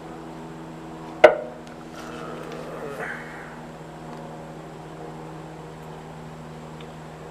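One sharp metal clank with a brief ring about a second in, then a little scraping of metal parts, as the new pressure washer pump is worked onto the engine shaft. A steady hum sits under it all.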